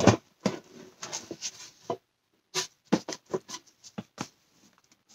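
A snap-off utility knife working at the plastic shrink-wrap on a cardboard box: a knock at the start as the box is handled, scratchy rustling of the wrap, then a quick string of about eight sharp ticks as the blade scrapes and picks at the film.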